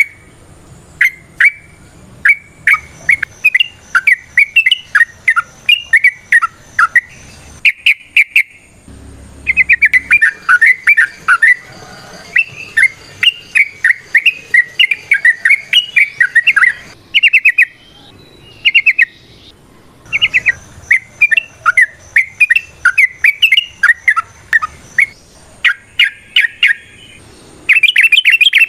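Yellow-vented bulbul (trucukan) singing nonstop in long runs of quick, bubbling chattering phrases, broken by a few short pauses. Near the end it switches to a fast, even trill.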